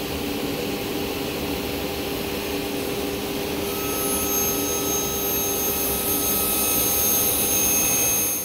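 Woodworking shop machinery running steadily, a loud whirring noise with a steady hum. A higher whine joins about four seconds in, and the sound cuts off abruptly near the end.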